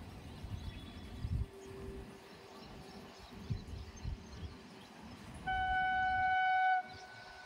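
Train horn sounding once, a single steady note held for just over a second near the end, over a gusty low rumble.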